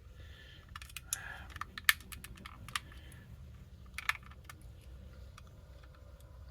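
Small plastic clicks and ticks with a brief scrape, from a screwdriver prying at the snap-fit clips of an aftermarket BMW E92 master window switch's plastic housing. The clicks come irregularly, a sharper one about two seconds in and another about four seconds in.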